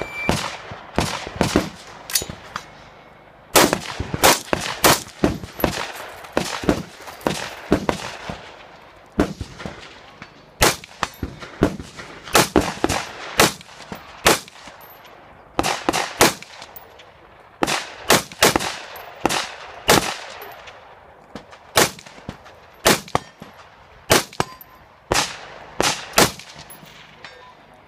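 Rifle shots fired in quick strings during an IPSC rifle stage, each crack followed by a short echo, with brief pauses of about a second between strings.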